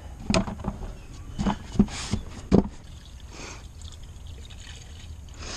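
Engine coolant pouring into a car's cooling system, with several sharp clicks and knocks in the first three seconds.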